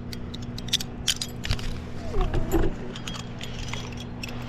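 Metal climbing hardware jingling and clinking in quick, irregular clicks, over a steady low hum.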